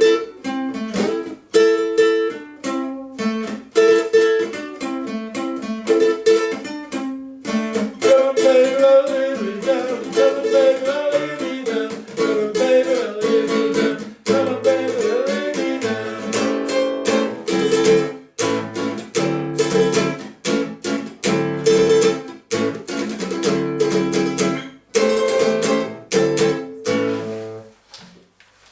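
A strummed plucked-string instrument, like a ukulele or small guitar, plays a song's chords in a steady rhythm, with a voice singing along in places. The playing stops near the end.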